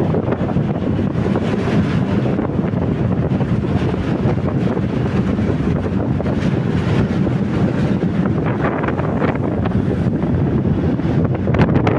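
Wind buffeting the microphone on the deck of a moving ship at sea: a steady, heavy rumbling rush, with louder gusts near the end.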